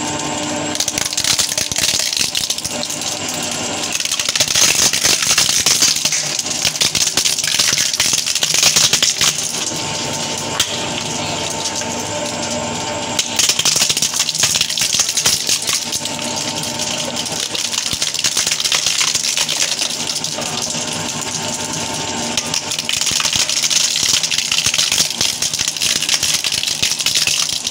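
MKS-CP30 twin-shaft mini shredder running, its toothed cutting discs crunching and cracking plastic items fed into the hopper. The crackling comes in several louder spells over a steady motor whine.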